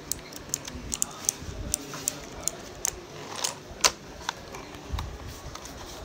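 Keys of an E-YOOSO Z-88 RGB mechanical keyboard being pressed one after another: an irregular run of sharp key clicks, about three a second, the loudest a little before four seconds in. A duller knock comes about five seconds in.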